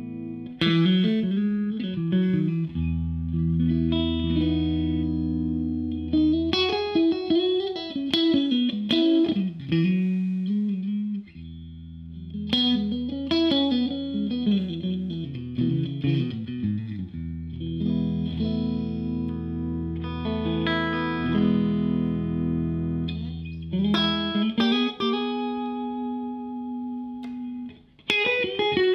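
Odlair SH 210 OW 7 Stratocaster electric guitar played through a Marshall JTM combo amp: held low notes ring under a lead line with string bends.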